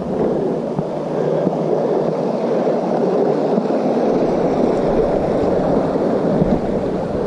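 Creek water running over rocks, a steady rushing noise.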